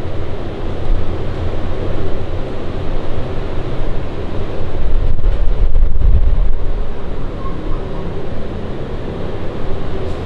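Loud, steady rushing noise with a low rumble, like air blowing across the microphone. It swells briefly about five seconds in.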